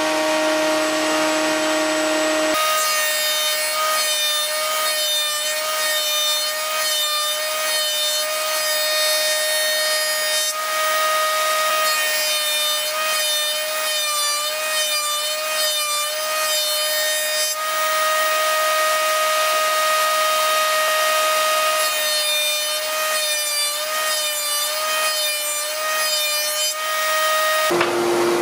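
A table saw cutting an MDF board along a sacrificial fence: a steady running whine that wavers in pitch over and over as the board is fed into the blade, with steadier stretches between. The sound changes abruptly about two and a half seconds in and again just before the end.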